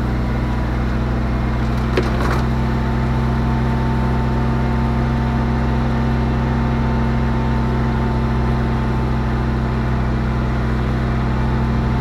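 Kubota farm vehicle's engine running steadily as it drives slowly over rough mown ground. A single sharp knock about two seconds in.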